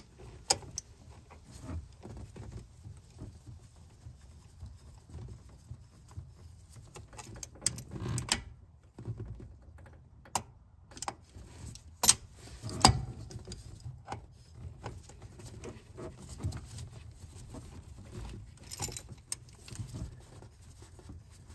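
Vice grips (locking pliers) clicking and clinking against a hose clamp and the surrounding metal as they are worked onto the clamp of the lower radiator hose, with two sharp clicks about twelve and thirteen seconds in.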